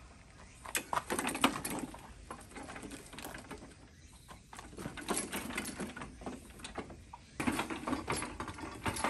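Metal rattling, knocking and scraping from a small old horizontal water-cooled kerosene farm engine on a wheeled hand cart as it is handled and moved, in three bursts with quieter gaps between; the engine itself is not running.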